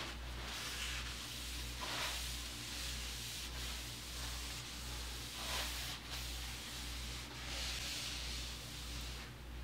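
A hand pad rubbed back and forth over the degreased steel top of a surface grinder's magnetic chuck. Each stroke gives a soft scraping hiss, every second or two, over a steady low hum.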